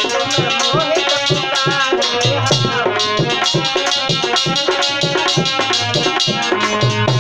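Devotional bhajan music: a harmonium holds sustained notes over a steady hand-drum beat, and a man's voice sings a phrase during the first few seconds.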